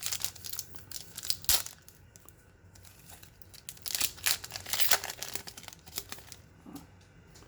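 Trading-card pack wrapper crinkling and tearing as a pack is opened, with the cards handled. The rustling comes in short spells about a second in and again around four to five seconds, with quieter handling between.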